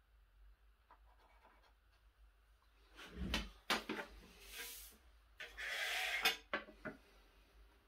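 Hand tools handled on an MDF board: a few knocks and clicks as a rule and square are set down, then a scraping slide as a spirit level is pushed across the board, followed by a few light knocks.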